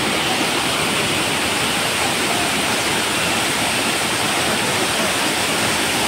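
Waterfall cascading over rock ledges: a steady rush of falling water.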